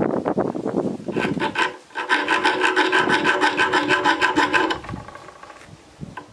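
Hand file rasping across the spine of a 4 mm N690 stainless steel knife blank, cutting jimping notches, with a ringing tone from the steel under each stroke. A few short strokes, then one long run from about two seconds in, and the filing stops about a second before the end.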